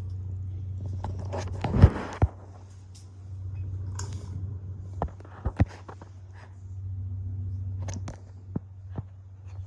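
Hunter ceiling fan running on high: a steady low hum, with its airflow swelling over the microphone twice. Scattered sharp knocks and clicks come through it, the loudest a thump about two seconds in.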